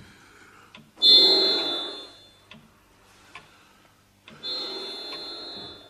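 A man takes two deep, open-mouthed breaths, one about a second in and one near the end. Each is a rasping wheeze with a high whistle in it, the sound of clogged lungs, likened to an out-of-tune organ.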